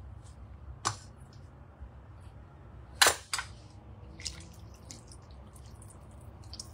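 A few sharp knocks of a wooden spatula against a stainless steel cooking bowl as mushrooms are stirred into soup, the loudest about three seconds in, followed by lighter ticks, over a low steady hum.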